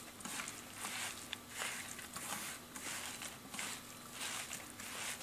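A hand kneading and squishing minced mutton mixed with egg and breadcrumbs in a stainless steel bowl: soft, repeated swishing and rubbing strokes, about three a second, with a few faint clicks against the bowl.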